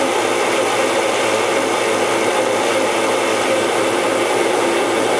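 Body saw running steadily as it cuts through two overlapping layers of sheet steel, a patch panel clamped over a car's front fender, to make a matched seam for a butt weld.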